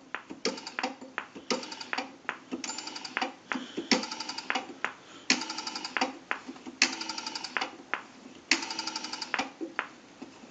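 Rotary dial of a GTE Automatic Electric payphone being wound and released digit after digit: each return of the dial gives a quick train of evenly spaced pulse clicks, about five trains of differing length, with single clicks between them as the dial is wound up for the next number.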